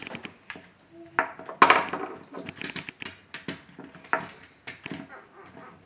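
Small wooden toy car made of magnetic Tegu blocks being rolled and knocked about on a wooden tabletop: a run of irregular wooden clacks and rattles, the loudest a little over a second and a half in.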